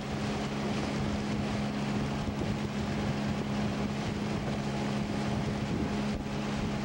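Outboard motor of a small river boat running at a steady speed with an even drone, under a hiss of wind and water rushing past the hull.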